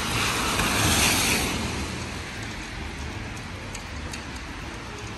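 Wet city street in the rain: a swell of tyre hiss from a vehicle passing on the wet road in the first second or so, then a steady, quieter hiss of rain and traffic.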